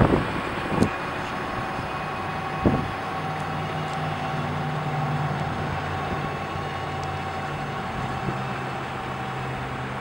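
Steady outdoor mechanical hum with wind noise on the microphone, and two brief thumps in the first three seconds.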